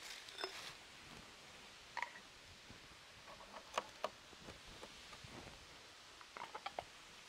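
A few faint, scattered clicks and knocks, with a quick run of small clicks near the end.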